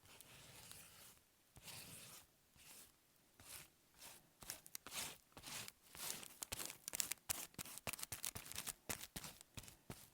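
Paper being worked by hand: a few soft swishing strokes, then from about halfway a quick run of crisp crackles and clicks, like paper being cut or torn.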